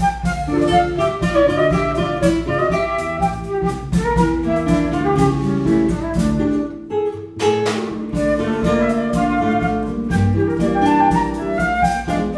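Live instrumental quartet: a concert flute plays the melody over nylon-string classical guitar, electric bass and a Gretsch drum kit. About seven seconds in the band stops together for a moment, then comes back in.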